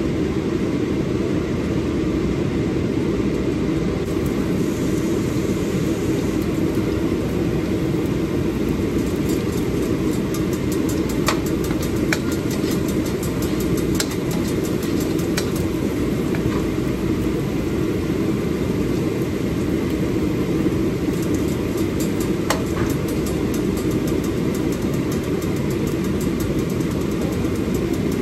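A steady, machine-like low drone with a few faint clicks scattered through it.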